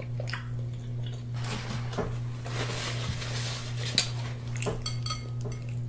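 Scattered clinks and taps of cutlery and dishware against a plate, the sharpest about four seconds in, with a short rustle in the middle, over a steady low hum.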